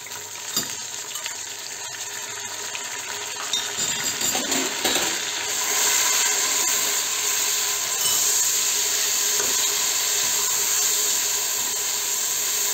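Chopped tomatoes and browned onions sizzling in hot oil in an aluminium pressure cooker, stirred with a metal slotted spatula that clicks and scrapes against the pan. The sizzle gets louder about halfway through.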